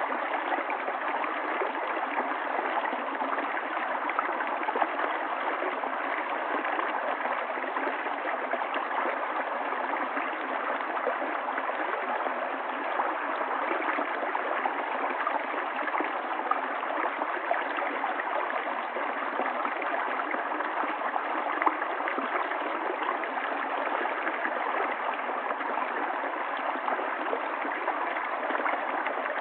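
River water flowing steadily over stones, a continuous babbling and gurgling rush.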